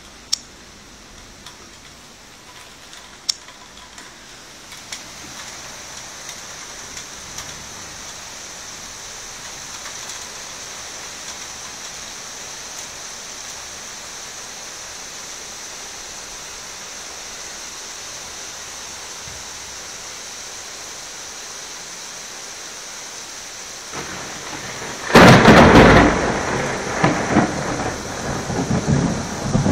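Steady rain falling through a thunderstorm, then about 25 seconds in a sudden loud thunderclap that rumbles on in rolling peaks.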